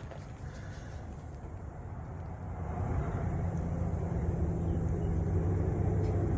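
A low engine rumble with a steady hum, growing louder about two and a half seconds in and then holding.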